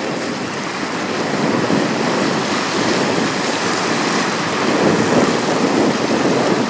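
Choppy, fast-flowing river water splashing against a stone seawall, mixed with wind on the microphone: a steady rushing noise that swells a little now and then.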